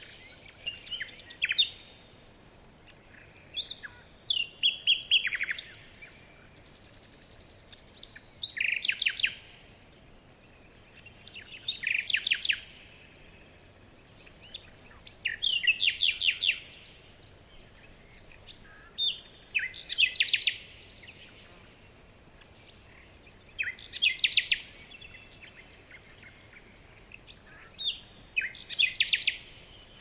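Songbird singing: the same short, rapid, high-pitched trilled phrase repeated eight times, about every four seconds, over a faint steady background hiss.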